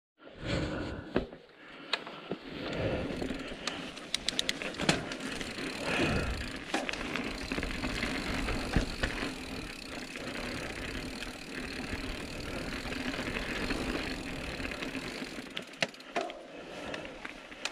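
Calibre Sentry mountain bike being ridden on a trail: steady tyre and riding noise, with frequent clicks and rattles from the bike.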